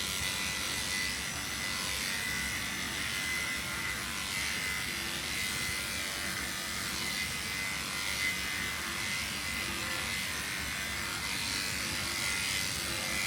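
Electric pet grooming clippers running steadily with a thin high whine while shaving a cat's coat.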